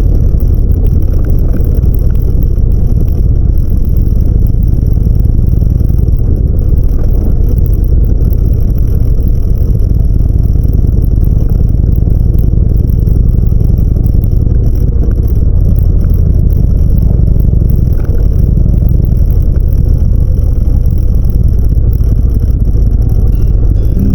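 Harley-Davidson motorcycle cruising at a steady speed: the engine runs evenly under a heavy rush of wind noise, with no revving or gear changes.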